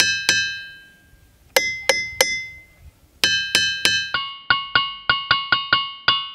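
Boulders of ringing rock (diabase) struck with a hammer. Each blow rings out with a bell-like tone that fades over about a second, and different rocks give different notes. Single and triple strikes come in the first half, then from about four seconds a quicker run of about three or four strikes a second on a lower note.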